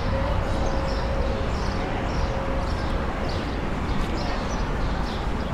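Footsteps at a steady walking pace, about two a second, over a steady hum of city ambience. A faint steady tone sounds through the first half.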